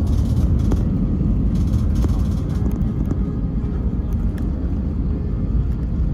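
Airbus airliner cabin noise: a steady, low rumble of the engines and airflow heard from a window seat inside the cabin.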